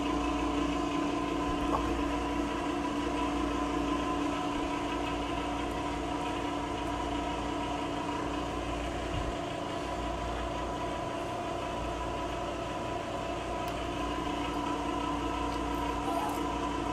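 A machine's steady hum: a few constant tones over a low rumble, unchanging throughout.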